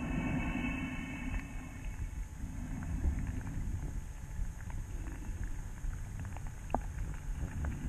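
A diver's voice heard underwater, muffled: a held hum for about a second and a half, a lower tone around three seconds in, then scattered clicks over a steady low water rumble.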